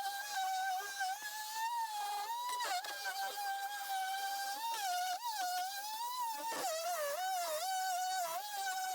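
Electric sander's motor whining at a steady pitch, the pitch dipping and recovering again and again as it is pressed into the wood.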